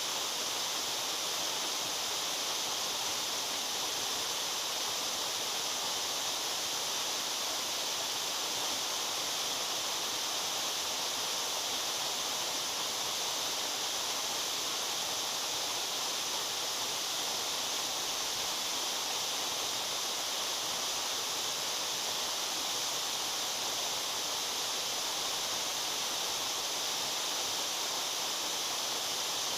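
Waterfall splashing steadily: a constant, even rush of falling water, mostly hiss in the upper range, with no changes.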